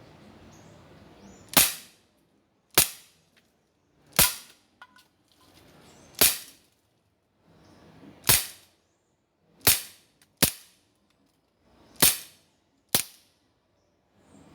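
Beretta PX4 Storm CO2 air pistol firing nine single shots at an uneven pace, roughly one to two seconds apart, each a sharp crack.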